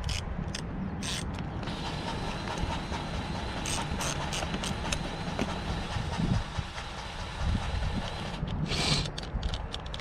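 Metal clicks and clacks from a skid-steer emergency-exit window latch being worked by hand, its catch and linkage snapping and rattling in short clusters, over a steady low rumble.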